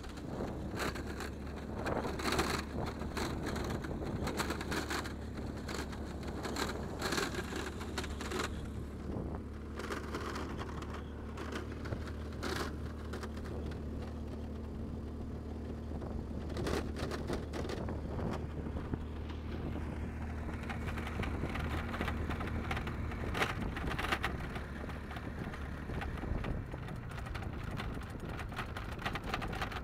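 A burning wildfire crackling and popping in irregular sharp snaps, over a steady low engine hum that stops about three-quarters of the way through.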